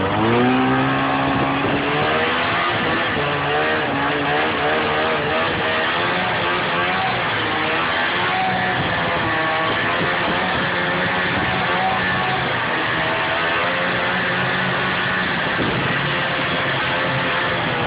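Snowmobile engine running under way, its pitch rising and falling with the throttle, picking up again after a brief dip at the start.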